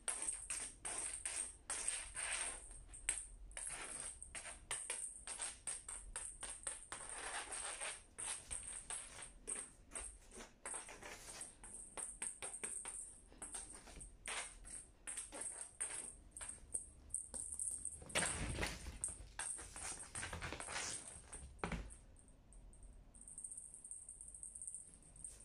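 Rapid, irregular light metallic jingling and clicking, with two soft low thumps in the last third. It thins out and quiets near the end.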